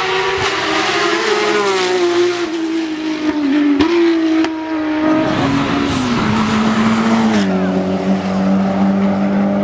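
Performance car engine running hard at high revs. Its pitch sinks slowly and then drops in two distinct steps, about five seconds in and again near the end, before holding steady.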